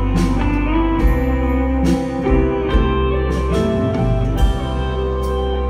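Live band playing an instrumental passage: electric guitar notes ringing out over bass and drums, with strong drum hits about once a second.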